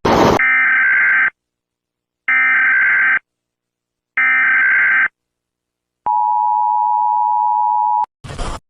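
Emergency Alert System SAME header: three one-second bursts of digital data tones about a second apart, then a two-second steady two-tone attention signal. A short burst of noise comes just before the data bursts and another just after the attention tone.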